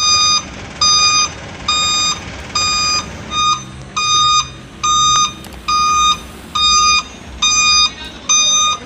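Electronic beeper sounding a steady, evenly spaced beep, about eleven half-second beeps a little under a second apart, like a reversing alarm.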